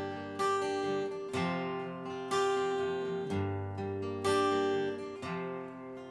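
Acoustic guitar strummed slowly, one chord about every second, each left to ring out.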